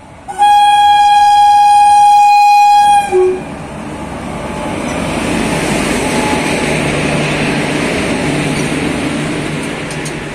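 A WAP-4 electric locomotive sounds its horn in one long, loud blast of nearly three seconds, followed by a brief lower toot. The locomotive and its passenger coaches then roll past close by, and the rumble of wheels on the track swells and eases off near the end.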